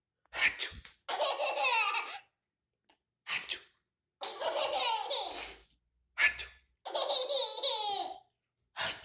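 A person sneezes, short and sharp, four times, and after each of the first three sneezes a baby bursts into a belly laugh lasting about a second. The laugh comes in quick rising and falling peals.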